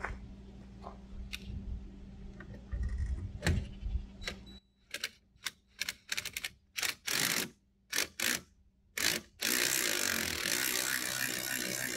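Spare tire hoist on a travel trailer's rear bumper being worked by hand: a run of separate sharp clicks, then from about ten seconds in a fast, continuous ratcheting as the spare tire is cranked up.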